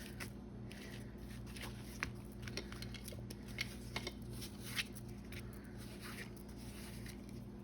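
Faint scattered taps and rustles of paper and card being handled and pressed down onto a journal page, over a steady low hum.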